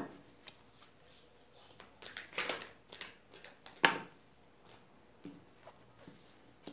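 A tarot deck being shuffled by hand: a few short rustles of cards sliding together about two to three seconds in, then one sharp snap of cards a little before four seconds.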